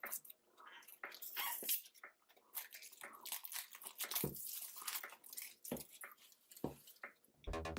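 Knife cutting open a smartphone's retail box: irregular scraping, tearing and crinkling strokes. Background music with a steady beat comes in near the end.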